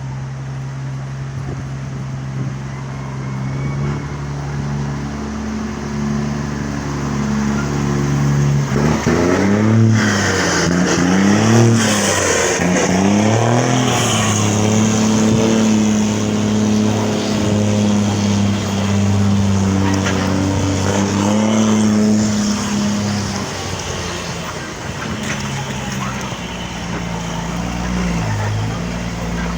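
City bus diesel engine idling, then pulling away: about nine seconds in, the engine rises and drops in pitch three times in quick succession as it shifts up through the gears. It then runs steadily at higher revs and eases to a lower note near the end.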